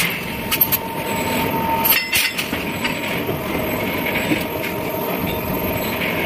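Forging-shop machinery running steadily, with a steady whine and a few sharp metallic clicks about half a second and two seconds in.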